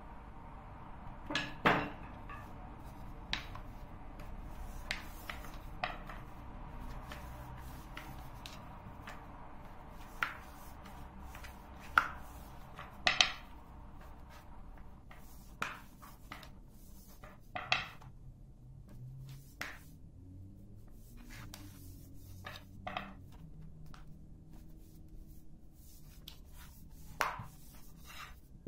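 Long thin wooden rolling pin (oklava) knocking and clacking against the countertop at irregular intervals as dough is rolled out into a thin sheet, about a dozen sharp knocks over a low steady background hum.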